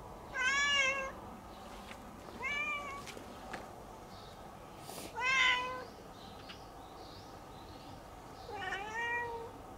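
Domestic cat meowing four times, short calls a couple of seconds apart; the last is longer, dipping and then rising in pitch.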